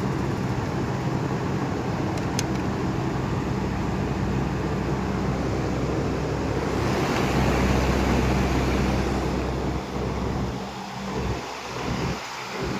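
Packaged air-conditioning unit running: a steady mechanical hum with rushing air, the air noise swelling about seven seconds in and turning uneven near the end. One sharp click about two seconds in.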